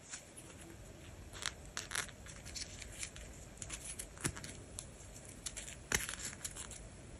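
A leather watch strap being pulled through its metal pin buckle and fastened on a wrist: irregular rustling of leather against skin and small sharp clicks of the buckle, the sharpest click near the end.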